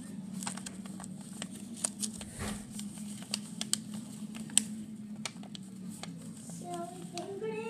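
A sheet of paper being folded and creased by hand, giving scattered crackles and soft taps against the table, over a steady low hum.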